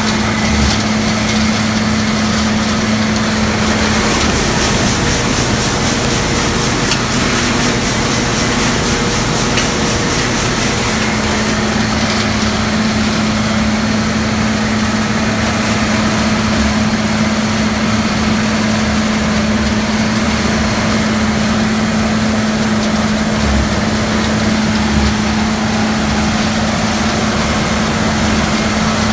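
Farm machinery engine running steadily under working load, a loud, even drone with a constant hum.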